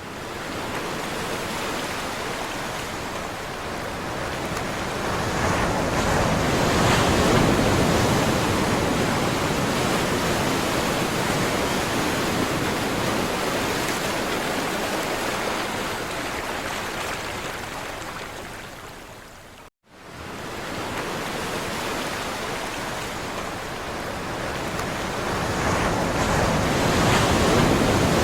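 Sea surf washing on a shore: a continuous rush of waves that slowly swells and eases, loudest about a quarter of the way in and again near the end. It cuts out abruptly for a moment about two-thirds of the way through, then starts again.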